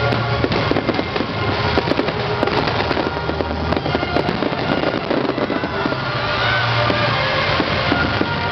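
Aerial fireworks barrage: many shells launching and bursting in quick succession, a dense run of cracks and crackling.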